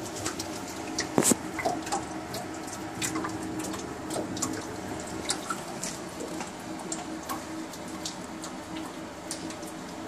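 Water dripping irregularly inside the hot, steaming wash chamber of a Champion UH200B commercial dishwasher, a scatter of small ticks and drops over a steady low hum.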